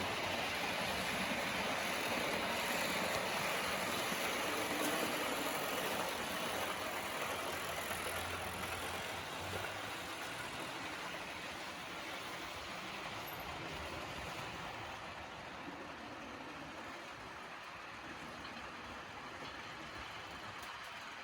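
Märklin model train running along the track, a steady rolling noise of wheels and motor that slowly fades as it moves away.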